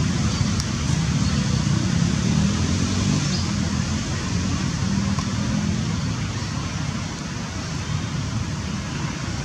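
Steady outdoor background noise: a low rumble with an even hiss over it, easing off slightly after the middle.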